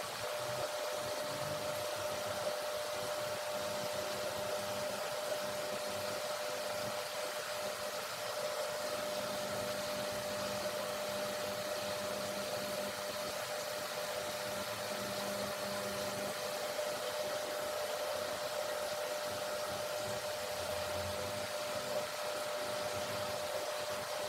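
Steady hissing noise with a constant mid-pitched hum, unchanging throughout, with no distinct events.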